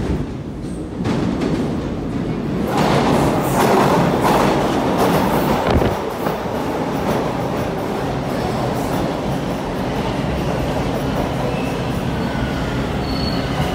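A TTC T1 subway train runs into the station. Its rumble builds over the first few seconds and is loudest, with clattering wheels, as the first cars sweep past. It then settles into a steady rumble as the train slows, with a faint wheel and brake squeal near the end.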